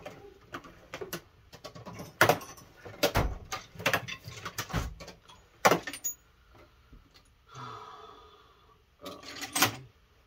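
Metal hand tools clinking and clattering while a ratchet and sockets are fetched, with a string of sharp knocks, several of them loud.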